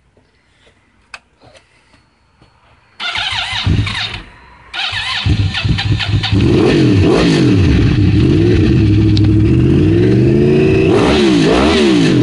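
A 2010 Yamaha YZF-R1's inline-four engine, breathing through dual carbon-fibre Graves exhausts, starts up loud about three seconds in and drops back briefly. It then runs and is revved again and again, the pitch rising and falling with each blip of the throttle.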